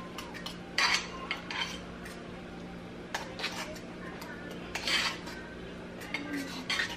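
Metal utensil scraping and clinking against a stainless-steel saucepan while stirring thick mashed potatoes, in irregular strokes with short pauses between them.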